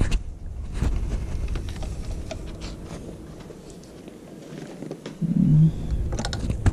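Wind buffeting an action camera's microphone, with scattered light clicks and rustles of wiring and plastic parts being handled. A brief low hum comes about five seconds in.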